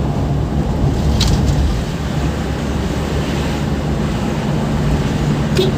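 Engine and road noise heard from inside the cabin of a moving vehicle: a steady low hum and rumble, with a brief sharp click about a second in and another near the end.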